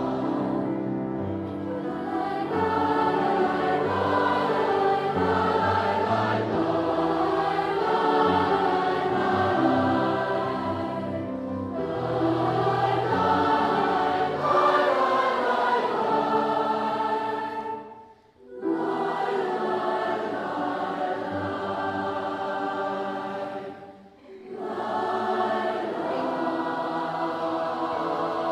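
Choral music: a choir singing slow, held chords, breaking off briefly twice, about 18 and 24 seconds in.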